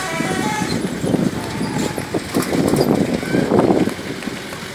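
A cement mixer truck's multi-tone 'telolet' musical horn sounding its last notes in the first second, then people's voices shouting over traffic noise.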